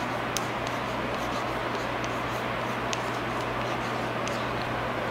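Chalk writing on a chalkboard: a few short, light chalk taps and scratches over a steady hiss and low hum.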